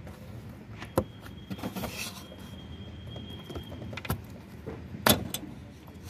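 Sharp plastic clicks and knocks as the electrical connector is worked off a Bosch air mass flow sensor, a few separate snaps with the loudest near the end.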